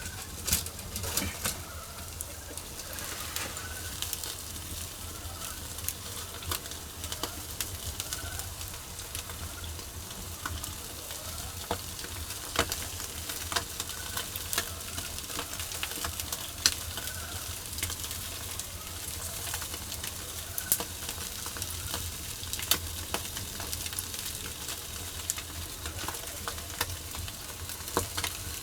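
Spanish mackerel sizzling on a gridiron over wood charcoal, as a lot of oil renders out of the fish. There is a steady hiss with frequent sharp pops and crackles.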